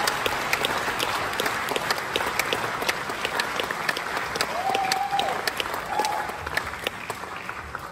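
Concert audience applauding, many hands clapping at once, the applause thinning out near the end, with a couple of short whistles from the crowd.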